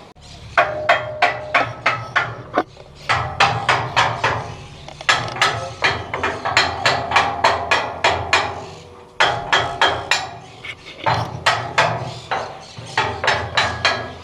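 Repeated hammer blows, about three a second, in several runs broken by short pauses: pounding on a stuck keyed part to knock it loose.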